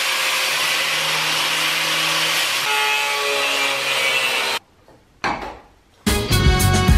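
Angle grinder with a cut-off wheel cutting through steel exhaust pipe, a steady grinding that runs for about four and a half seconds and then stops. Music comes in near the end.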